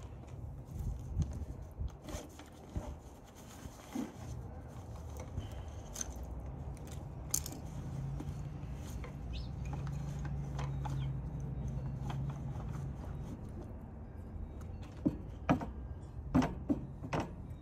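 Metal hand tools clinking and rattling as they are picked out and handled, in scattered sharp clicks with a cluster of louder ones near the end. A low steady hum rises and falls in the middle.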